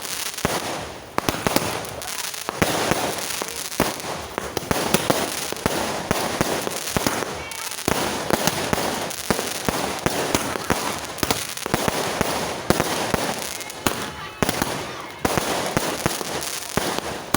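Fireworks and firecrackers going off without a break, a dense run of sharp bangs and crackles.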